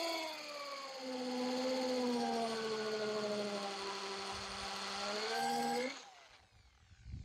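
Corded 500-watt hammer drill in non-hammer (rotary-only) mode, running at full speed with a half-inch masonry bit boring into brick. The motor whine sags in pitch as it is pushed harder and draws more power, rises a little near the end, then cuts off and winds down about six seconds in. A few faint knocks follow.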